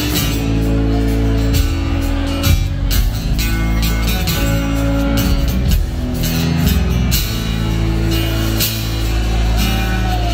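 A live band playing a rock song on guitars, bass guitar and drum kit, with steady drum hits under held guitar notes.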